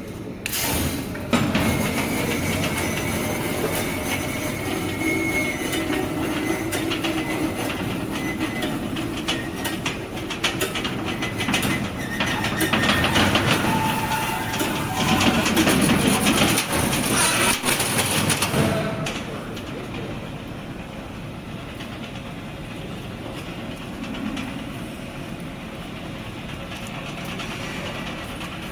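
Roll mesh welding machine for 3–6 mm wire running: a rapid, dense mechanical clatter of welding and wire feeding. About two thirds of the way through it drops suddenly to a quieter, steady run.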